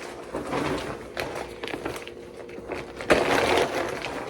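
Grocery bags being handled and folded, an irregular rustling and crinkling with a louder rustle about three seconds in.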